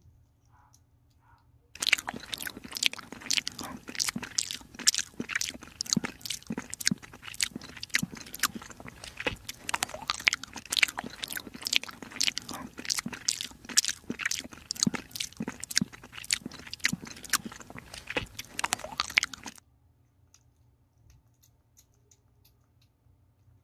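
Kitten chewing and smacking wet cat food close to the microphone: a fast run of wet clicks and smacks, several a second. It starts abruptly about two seconds in and stops abruptly a few seconds before the end.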